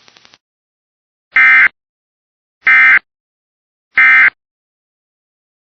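Three short bursts of Emergency Alert System SAME digital data tones, a harsh warbling screech, each about a third of a second long and a little over a second apart: the end-of-message (EOM) code that closes the broadcast warning.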